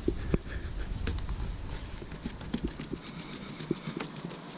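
Scattered light taps and clicks over low wind rumble on the microphone; the rumble dies away about three seconds in.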